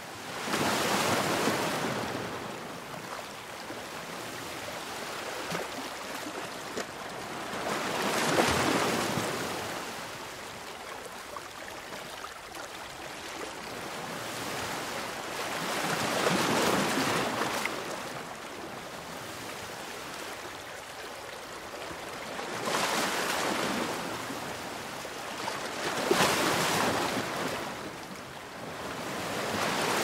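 Ocean waves washing in: each wave is a rush of surf that swells and fades, arriving every several seconds.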